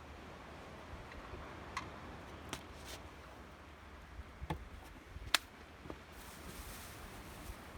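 A handful of sharp, separate clicks and light knocks, about six spread over several seconds, over a steady low wind rumble, with a faint high hiss near the end.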